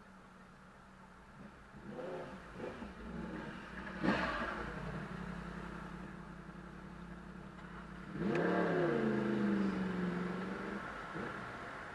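A motorcycle engine revs as the bike comes up alongside and settles in front. About eight seconds in, it accelerates away hard from the traffic lights, its note climbing and then levelling off. Steady city traffic runs underneath.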